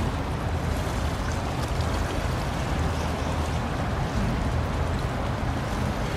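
Japan Coast Guard patrol ship PLH21 Fusou under way: a steady low rumble with the rushing wash of its bow wave and wake over it.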